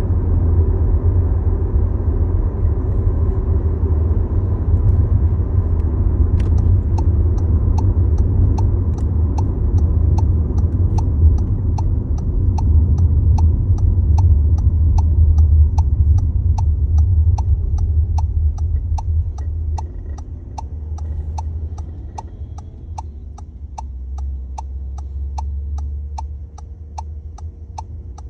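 Low rumble and vibration inside a 2022 Volkswagen Tiguan SE R-Line, with a steady low drone from its 2.0-litre turbo four-cylinder drivetrain. The rumble is the vibration noise the owner links to the start-stop system. A regular ticking of about two ticks a second starts several seconds in, and the rumble eases off in the last third.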